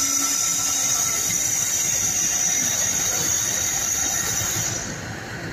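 Colas Rail freight train running past on the rails: a steady rumble of wheels on track with a high whine over it. The sound drops away about five seconds in.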